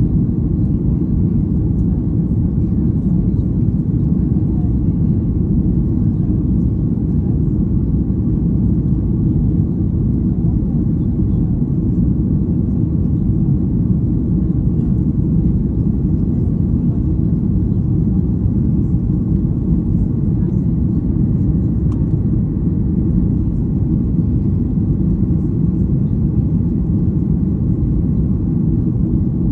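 Jet airliner cabin noise: the engines and rushing air make a steady, loud low rumble, heard from a window seat over the wing as the plane climbs out after takeoff.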